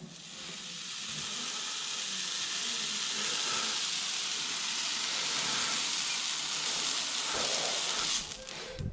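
Red-hot steel horseshoe pressed onto a horse's hoof, the hoof horn hissing and sizzling as it burns. It builds over the first couple of seconds, holds steady, and cuts off about eight seconds in as the shoe comes away.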